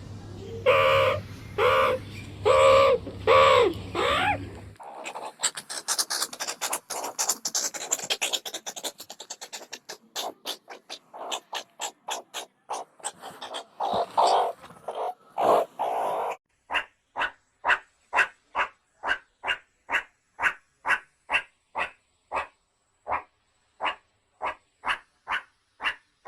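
Meerkats calling: first a string of short pitched yelps, some bending up and down in pitch, then several seconds of fast, high chirping chatter, and in the last third evenly spaced short calls at about two a second.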